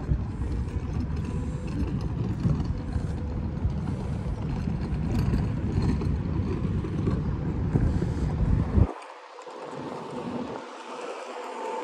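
Wind buffeting the microphone as a heavy, uneven low rumble, which cuts off abruptly about nine seconds in, leaving only faint open-air ambience.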